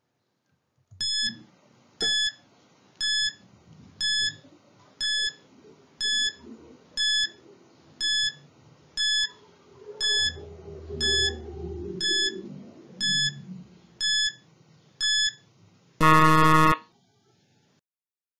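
Countdown timer beeping about once a second, fifteen short beeps, then a longer, louder buzzer near the end as the count reaches zero.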